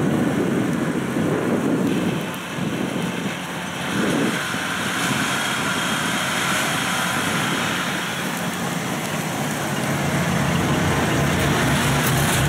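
Diesel engine of a farm machine running hard under load as it climbs a steep bank, with a low engine note that grows louder toward the end.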